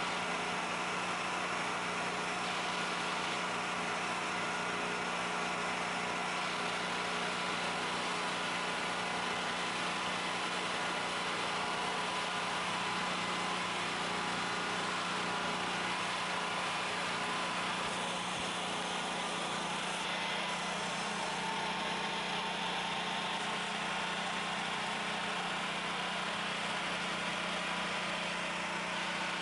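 Generator engine running at a steady speed with almost no electrical load on it, an even hum with a strong low tone and no change in pitch.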